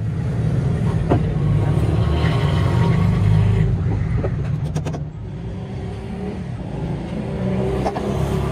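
An engine running with a low rumble, louder over the first five seconds and then easing off, with a few light knocks.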